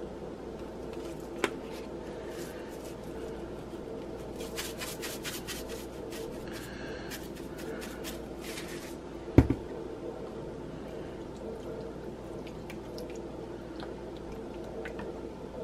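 A seasoning shaker is shaken over chicken tenders in a glass dish, making a run of rapid rattles in the middle. A single loud knock comes at about nine seconds. Near the end buttermilk is poured from a carton over the chicken with a soft wet sound. A steady low hum runs underneath.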